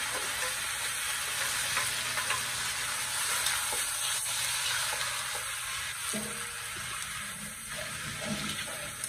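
Chicken pieces sizzling in a metal wok over a wood fire, stirred with a metal spoon that clicks against the pan now and then. The chicken is being seared dry before the coconut milk goes in, to drive off its gamey smell.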